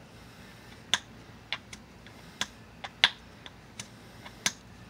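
Copper-tipped billet striking the edge of a stone piece being flintknapped: about nine sharp clicks at uneven intervals, starting about a second in. These are strikes aimed at getting a flake underneath a hinge, which fail to get underneath it.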